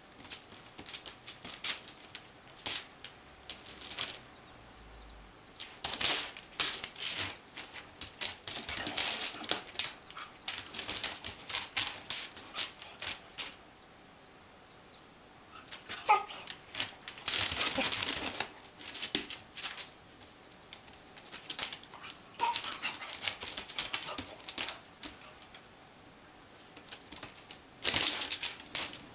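Dog scratching and pawing at a whole watermelon with its claws: bursts of rapid scraping clicks with short pauses between, and a couple of brief squeaks partway through.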